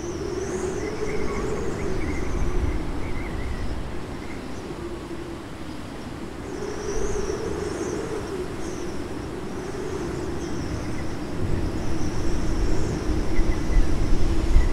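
Wind buffeting the microphone in open countryside, with a low wavering drone and small birds chirping high and thin. The gusts grow stronger near the end.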